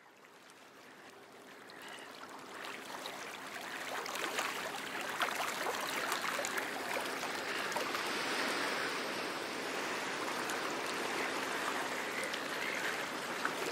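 Running water, a steady trickling and splashing, fading in over the first few seconds and then holding steady.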